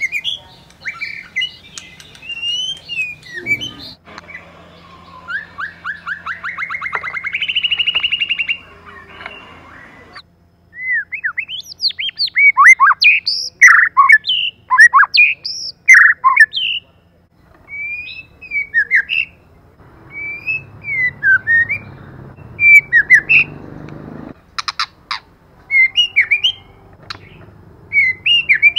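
White-rumped shama singing: a string of varied clear whistles, chirps and glides, with a rapid trill that climbs in steps a few seconds in and the loudest, densest phrases near the middle.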